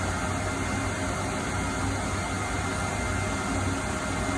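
Steady rushing machine noise with a low hum and a faint steady whine, the constant running of shop machinery.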